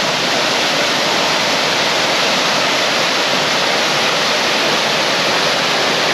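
Steady rushing water from a waterfall and creek, an even roar with no breaks.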